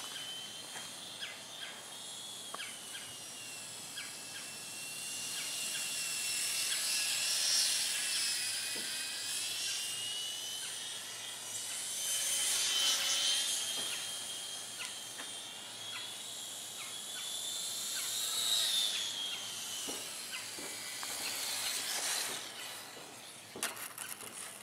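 Small electric motor and propeller of a ParkZone Ultra Micro J-3 Cub radio-control plane whining at a high pitch in flight. The tone wavers up and down and swells louder several times, then falls away near the end.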